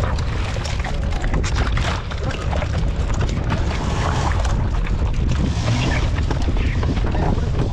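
Small fishing boat under way at sea: wind buffeting the microphone over water rushing and splashing along the hull.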